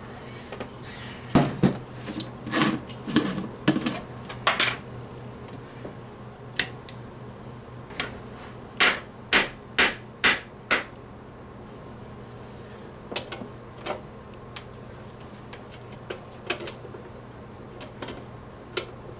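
Sharp plastic clicks and taps of a blue measuring spoon and a plastic measuring cup being handled, several in quick runs and then a few single ones, over a low steady hum.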